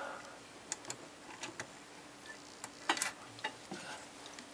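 Light, irregular metal clicks and ticks as the spring clip and pivot rod of a sink pop-up stopper are worked against the perforated metal clevis strap to disconnect the stopper, the loudest click about three seconds in.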